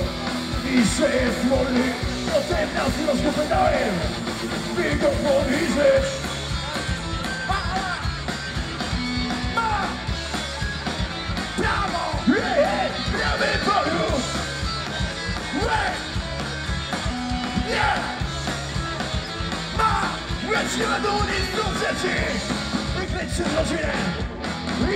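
Punk rock band playing live: electric guitar, bass guitar and drums, with a vocalist singing over them.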